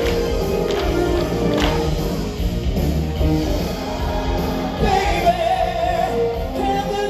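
Live stage-show music with a band, with a voice singing over it from about five seconds in.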